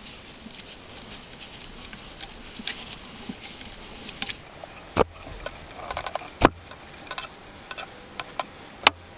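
Light scraping and small metal clicks of a screwdriver turning out a loosened nut on a pickup's purge valve solenoid bracket, with three sharper clicks, the first about five seconds in.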